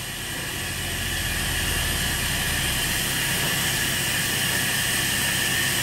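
Steady hum and hiss of machinery running, with a low drone and a few steady higher tones.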